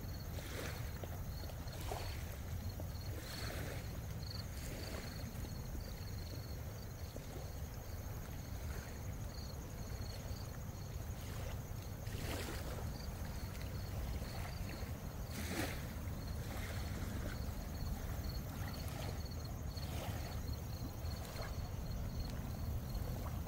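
Outdoor nature ambience: a steady low rumble under soft swishing sounds that come every second or two, with a thin, high chirping repeated several times a second throughout.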